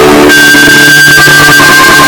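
Synthesized emergency-alert alarm tones boosted until they distort. Several steady pitches sound together and switch to a new set of pitches about a third of a second in, then hold.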